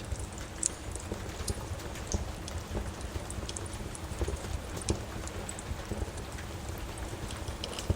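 Steady rain with the irregular pops and crackles of a wood fire in a fireplace.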